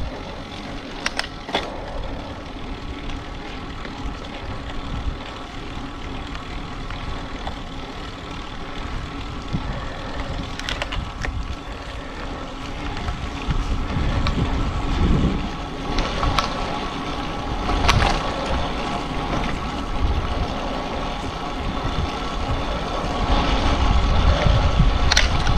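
Road and wind noise from riding a bicycle, with a steady hum, a few sharp knocks, and wind rumble on the microphone growing louder through the second half.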